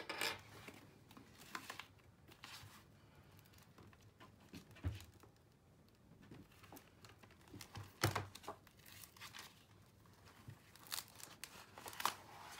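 Paper pages of a notebook rustling and being leafed through as the notebook and a pen are handled on a wooden desk, with a few soft knocks as things are set down.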